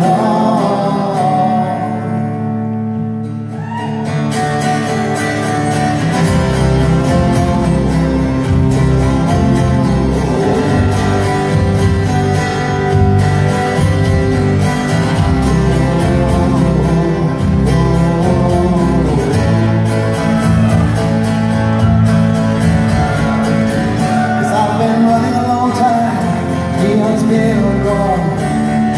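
Live folk-rock song: a man singing over a strummed acoustic guitar, with deeper bass coming in about six seconds in.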